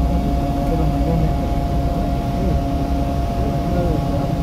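Steady low rumble of a vehicle driving along a road, with a constant steady tone running over it.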